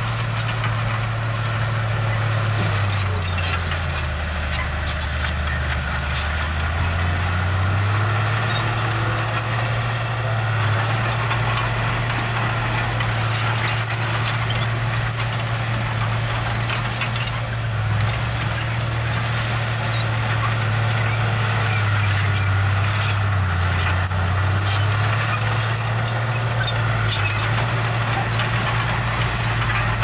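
Diesel engine of a small construction machine running steadily, its low drone dropping in pitch and coming back up twice, with scattered sharp knocks over it.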